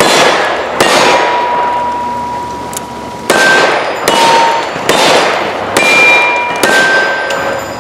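Single-action revolver shots fired one after another, about six, each followed by the clear ringing tone of a steel target being hit; the first shot stands alone, then the rest come about a second apart.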